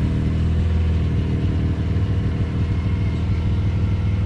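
Rotary car engine, run on premix, idling steadily at a raised idle of about 1200 RPM on a freshly flashed tune, holding speed without hunting.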